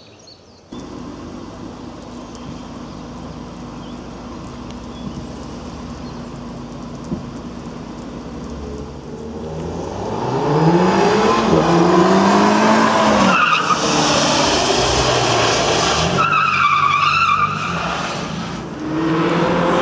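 Volkswagen Golf R's turbocharged four-cylinder engine hums steadily, then from about ten seconds in revs hard up and down as the car is thrown around. The tyres squeal twice as it slides.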